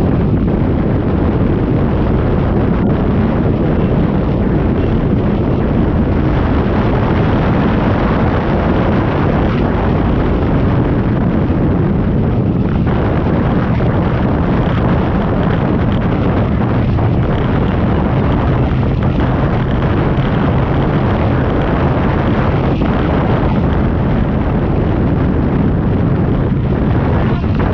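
Twin big-block V8 engines of a 1997 29-foot Fountain step-hull powerboat running at speed, a loud steady drone mixed with rushing water and wind buffeting the microphone.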